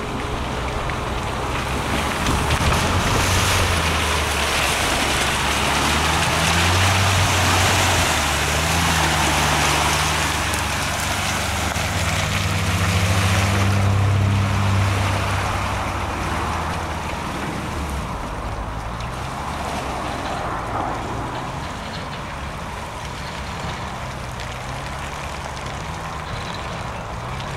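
Suzuki Samurai's engine revving hard under load as the off-roader climbs through mud and scrub, its pitch rising and falling as the throttle changes. It is loudest through the first half and quieter from about two-thirds of the way in as the vehicle pulls away.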